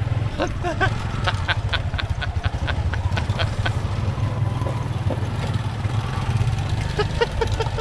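Motorbike engine running at low speed on a rough dirt track: a steady low drone with irregular rattling ticks over it.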